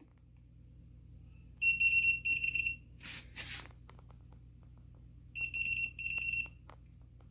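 Electronic beeper of a fingerprint smart door lock sounding high, rapid-fire beeps in two bursts, twice, about four seconds apart, with two short rushing noises and light clicks in between.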